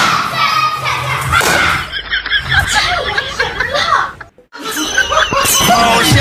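Background music, then a man talking in Chinese, and after a brief cut-off people laughing.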